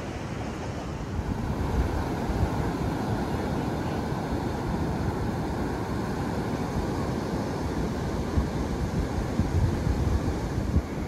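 Wind buffeting the microphone over the steady wash of surf breaking on a sandy beach, growing louder about a second in.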